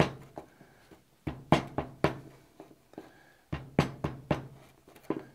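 Small hammer striking a lump of plasticine on a pine board that rests on a steel work surface, forging the clay back into a square bar. Dull knocks come in quick runs of three or four blows, with short pauses between runs.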